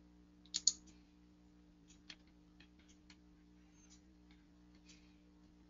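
Faint clicking at a computer: two sharper clicks about half a second in, then scattered lighter clicks, over a low steady electrical hum.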